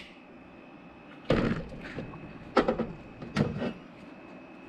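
Three clunks about a second apart as a cordless drill is set down on a workbench and a block of aluminium is picked up and handled.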